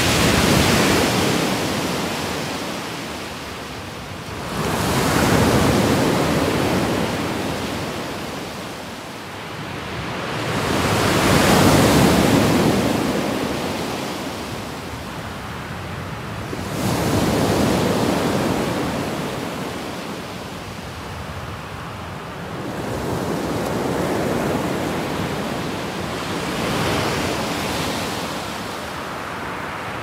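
Small waves breaking and washing up a pebble beach. Each wave is a swell of rushing surf that rises and fades, one every five or six seconds.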